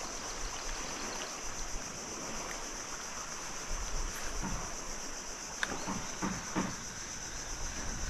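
Insects chirring in a steady, high-pitched drone, with a few faint clicks in the second half.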